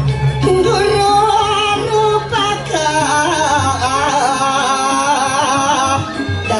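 A performer singing into a microphone in Balinese dance-drama style, one high voice whose pitch wavers and slides, over steady low tones of gamelan accompaniment.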